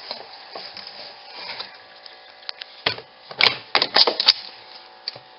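Spin tub of an Auauna portable twin-tub washing machine running with a steady hum, the load unbalanced, with a cluster of sharp knocks about three to four seconds in.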